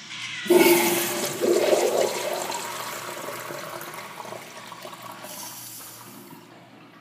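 Crane Plumbing urinal flushing: a sudden rush of water about half a second in, surging again a second later, then water running through the bowl and slowly fading away.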